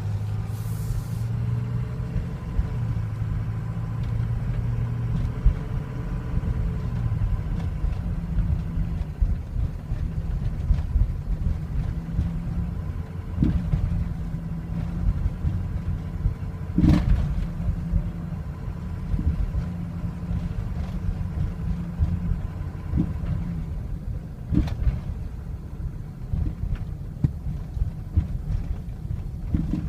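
Ford 6.0L Powerstroke V8 turbo-diesel idling unevenly, the rough idle of a warm engine that stumbles and stalls. A few sharp knocks stand out over it about 13, 17 and 25 seconds in.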